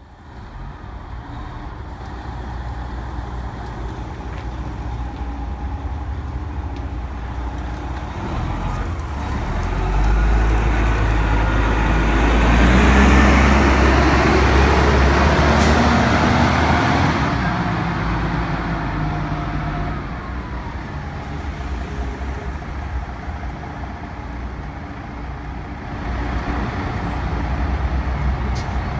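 Diesel engine of an intercity motorcoach running as the bus pulls away from the stop, its low rumble swelling to its loudest about halfway through and then easing off as it drives away.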